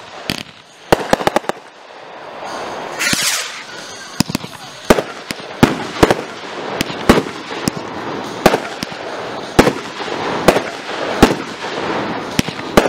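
Aerial fireworks bursting in a rapid, irregular string of sharp bangs and crackles, about one every half second, with a short hiss about three seconds in.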